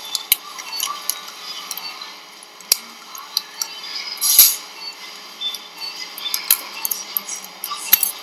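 Steel surgical instruments, a needle holder and forceps, clicking and clinking while a stitch is placed into the pectineal ligament, with a louder short noise about four seconds in.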